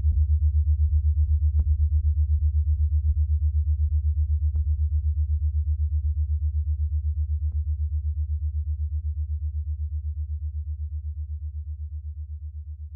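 Background music: a deep, rapidly pulsing synthesizer bass tone with a few sparse, faint higher notes, slowly fading out toward the end.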